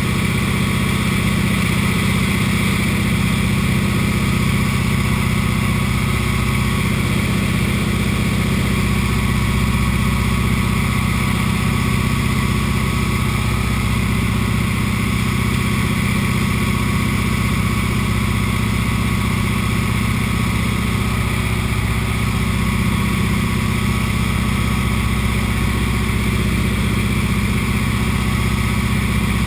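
Light floatplane's piston engine and propeller droning steadily, heard from inside the cockpit, with no change in pitch or loudness.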